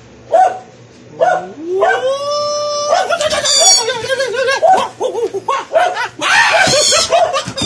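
Dog vocalizing in play: a rising howl held for about a second and a half, then a quick run of short yips and whines.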